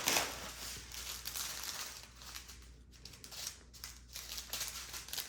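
Small plastic bags of diamond painting drills crinkling as they are handled, loudest at the start.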